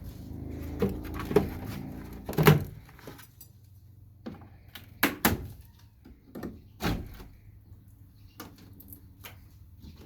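Wooden beehive frames and boxes knocking and thunking as they are handled and pulled apart: a string of irregular sharp knocks, the loudest about two and a half seconds in, with more around the middle and fewer, fainter ones near the end.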